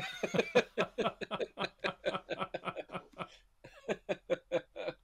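Two men laughing together, a long run of quick, repeated chuckles with a short break about three and a half seconds in.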